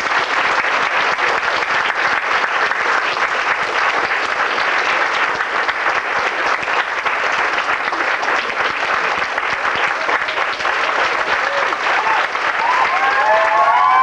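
Audience applauding steadily with dense clapping. Near the end a few voices rise over the clapping.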